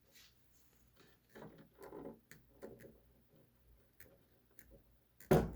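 Hands working at a wooden sewing-machine cabinet and its wiring: scattered small clicks and rustles, then one louder knock about five seconds in.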